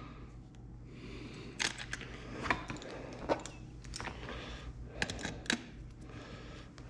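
Several sharp, light clicks and clinks of small metal hand tools and rivet hardware being handled, spaced irregularly, over a faint steady low hum.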